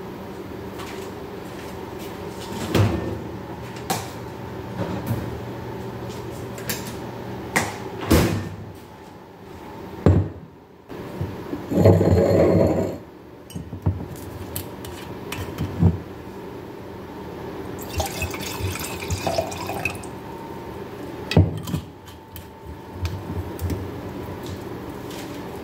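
Wine poured from a glass bottle into a stemmed wine glass, with sharp clicks and knocks of glass set down on a stone countertop.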